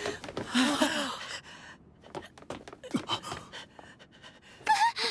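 Ragged, pained panting and gasps from a hurt person struggling to breathe. A short voiced gasp comes near the end.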